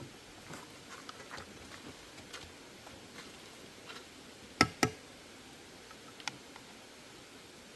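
Irregular light clicks and knocks of kitchen work, with two sharper knocks in quick succession about four and a half seconds in.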